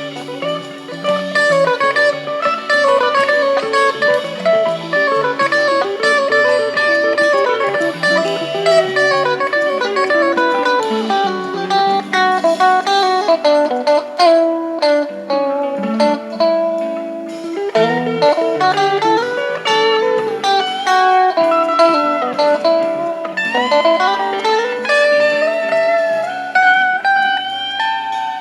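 Electric Stratocaster-style guitar through a Crybaby wah pedal into a Fender Blues Junior tube amp, playing a continuous lead line. Pitches glide up and down from about two-thirds of the way in.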